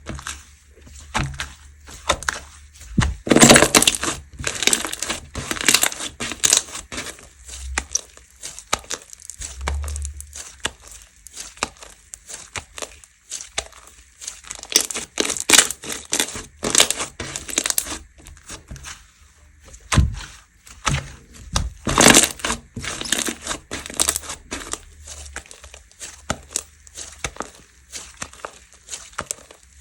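Dessert-style slime being squished, pressed and stretched by hand, giving irregular crackly, popping squishes with louder bursts about three seconds in and again near twenty-two seconds.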